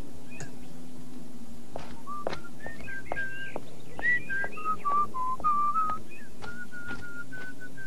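A person whistling a simple tune in clear, held notes, starting about two seconds in, with birds chirping faintly throughout.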